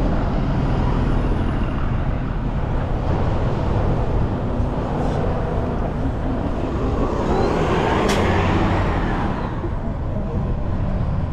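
A city articulated bus driving past close alongside on a busy road, over steady traffic noise. The sound swells about two-thirds of the way through and then eases.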